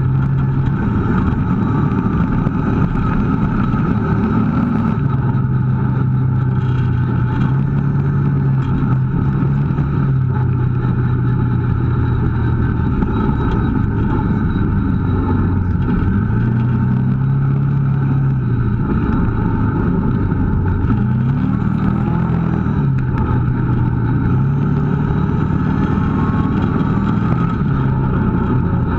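Kawasaki KVF650 ATV's V-twin engine running while the quad is ridden along a trail, its pitch rising and falling as the throttle is opened and eased off.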